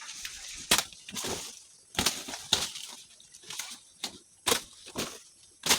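Woody Madre de Agua (Trichanthera) branches being cut and broken during trimming: about seven sharp cracks or snaps at uneven intervals, with leafy rustling between them.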